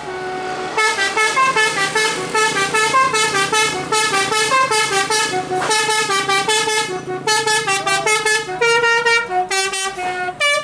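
Bus telolet horn playing a fast tune of short, stepped horn notes, several a second, over and over.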